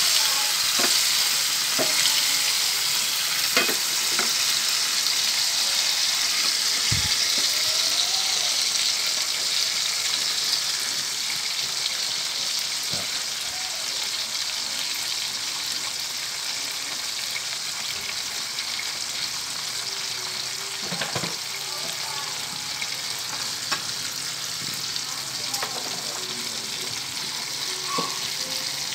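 Pomfret frying in hot oil in a pan: a steady sizzle with scattered small pops and crackles, easing a little over time.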